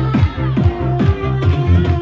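Electronic dance music with a steady kick-drum beat, about three beats a second, over held low bass notes.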